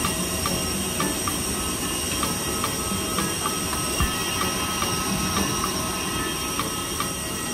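Steady vehicle ride noise: a low rumble under a constant high whine, with a faint tick repeating a few times a second.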